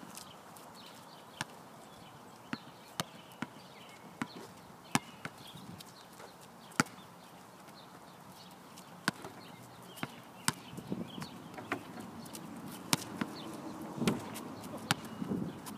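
Basketballs bouncing on an outdoor asphalt court as two players dribble and shoot: irregular sharp bounces, coming more often in the second half.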